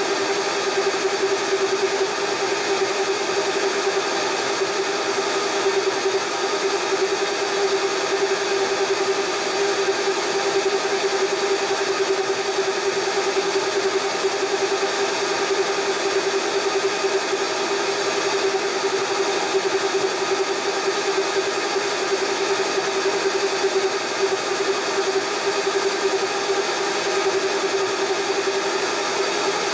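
Blender running continuously, its motor giving a steady whine that holds the same pitch throughout, as it spins eggs long enough to try to heat them by friction.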